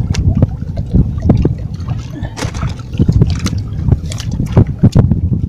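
Water slapping against a small boat's hull, with wind rumbling on the microphone and scattered short knocks.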